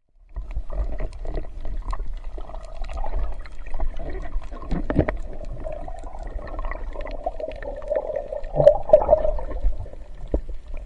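Muffled underwater sound picked up through a waterproof camera housing: water moving, handling knocks and a wavering mid-pitched hum as a spiny lobster is gripped in a gloved hand. The hum is loudest about nine seconds in, with sharp knocks around five and nine seconds.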